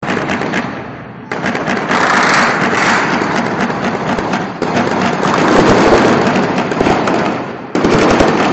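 Heavy gunfire and shelling: a dense, continuous crackle of shots and blasts, with sudden jumps in loudness about a second in, midway through and near the end.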